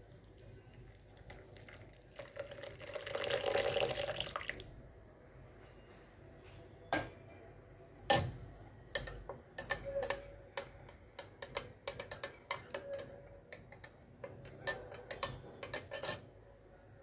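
Milk pouring into a glass mug of tea for about two seconds, then a metal spoon stirring the milk tea and clinking against the glass again and again.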